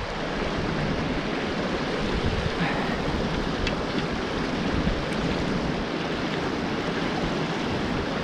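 A small mountain stream rushing steadily over stones and a little cascade, with a low rumble of wind on the microphone underneath.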